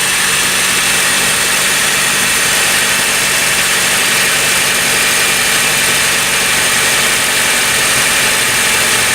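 1999 Honda Civic four-cylinder engine idling steadily through a freshly installed aftermarket exhaust header, on its first run after the install.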